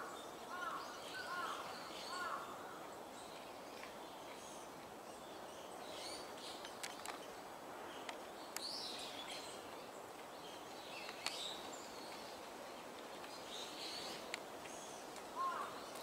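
Wild birds calling over a steady background hum: scattered high chirps throughout, and a short hooked call repeated a few times in the opening seconds and again near the end. A few sharp clicks stand out, the loudest about eleven seconds in.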